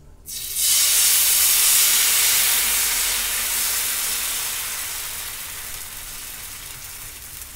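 Ghavne rice batter sizzling as it is poured onto a hot, ghee-greased dosa griddle. The sizzle starts suddenly under a second in, is loudest for the next couple of seconds, then slowly dies down as the batter sets.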